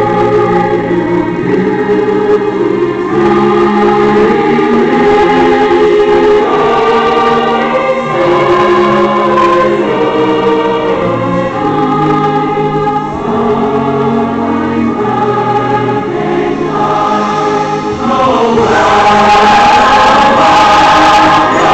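A choir singing slow, sustained chords, swelling louder near the end.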